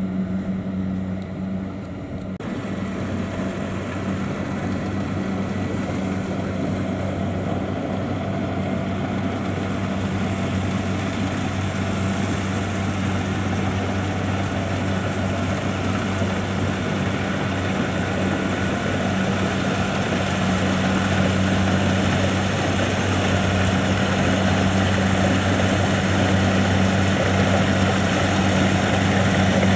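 Kubota DC70 Plus combine harvester running steadily while cutting rice, its diesel engine humming under the clatter of the cutting and threshing works. The noise thickens about two seconds in and grows gradually louder toward the end.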